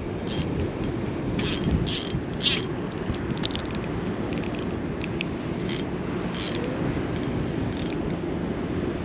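Spinning reel being cranked to retrieve line, its gears turning with scattered short clicks and scrapes over a steady low rumble.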